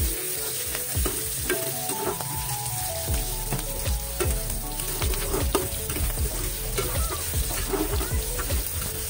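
Pork belly strips sizzling in hot fat in a metal wok, stirred and turned with a metal spatula that scrapes and clicks against the pan.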